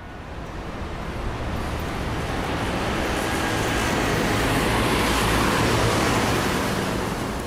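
A rushing noise swells slowly for about six seconds over a low, steady hum, then fades out near the end, like an electronic whoosh sound effect.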